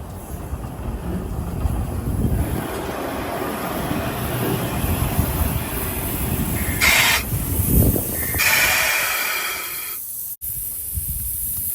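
Steam locomotive moving slowly with a low, rising rumble. Steam hisses out in a short burst about two-thirds of the way in, then again in a longer hiss a moment later.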